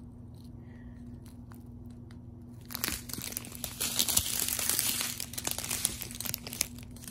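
Clear plastic zip bags of resin diamond-painting drills crinkling as they are handled and folded over. The crinkling starts about three seconds in and lasts about four seconds.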